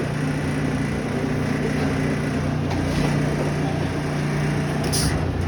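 Steady drone of machine-shop equipment with a constant low hum, and a few light clicks about three and five seconds in.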